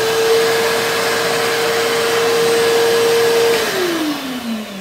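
Shop vacuum pulling suction through the vacuum former's perforated table, running with a steady, even whine. About three and a half seconds in it is switched off and the whine falls in pitch as the motor winds down.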